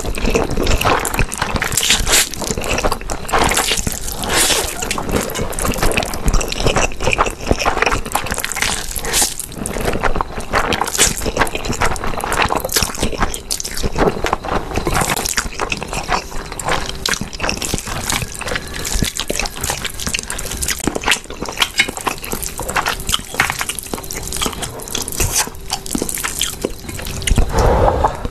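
Close-miked, wet slurping and chewing of spicy instant noodles, with many quick smacking mouth sounds.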